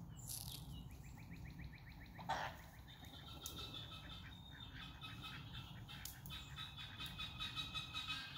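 Birds chirping and trilling: a fast run of short chirps, one louder call a little over two seconds in, then rapid repeated chattering notes.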